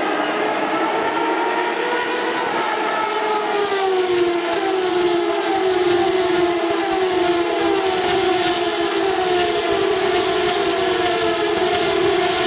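A field of Formula Renault 3.5 single-seater race cars going by at racing speed, several engines sounding at once. Their pitch keeps gliding and dropping as cars pass one after another.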